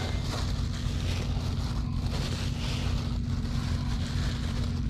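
Steady low drone of a boat engine running on the river, with wind buffeting the microphone. The plastic bait bag crinkles as hands knead the bait inside it.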